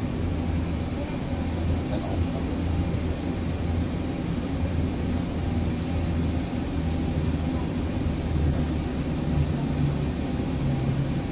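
Steady low rumble and engine hum inside the cockpit of a Boeing 737-800 rolling along the runway after landing, its CFM56 engines near idle. A few faint clicks near the end.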